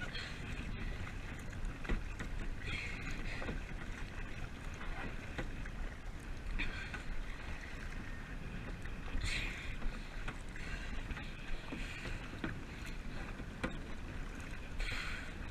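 Kayak paddle strokes, splashing in the water at irregular intervals of a few seconds, with a few light knocks, over a steady low rumble of wind on the microphone.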